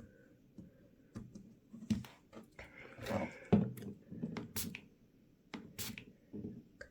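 Scattered small clicks, taps and short scrapes of a tool working at the seam of a Galaxy Note 5's glued-on back cover while prying it off, with one sharper click midway.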